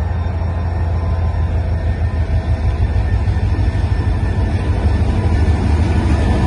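GMU-30SR diesel-electric locomotive approaching slowly, its engine running with a steady low drone that grows gradually louder as it nears.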